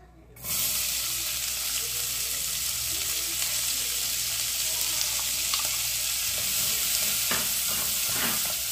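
Chopped onion sizzling in hot lard and bacon fat in a stainless steel pot. The steady hiss starts suddenly about half a second in as the onion hits the fat, and a spoon stirs it near the end.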